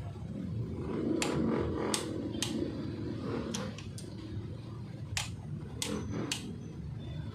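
Hand tools and metal engine parts being handled during engine assembly: about eight sharp clicks and taps, irregularly spaced, over a steady low background noise.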